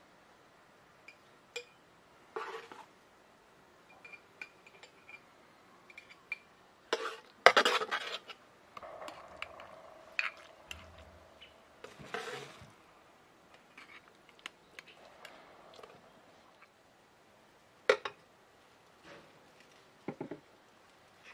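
A metal spoon scraping and clinking against a metal cooking pot and glass jars as thick jam is spooned into the jars, with scattered knocks as the jars are set down on a wooden table. The loudest clatter comes about seven seconds in.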